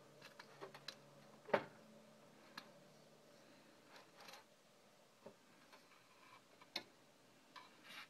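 Faint, scattered light clicks and taps of an egg and its shell being handled at a bowl while the white is separated from the yolk, the sharpest click about one and a half seconds in and another near seven seconds.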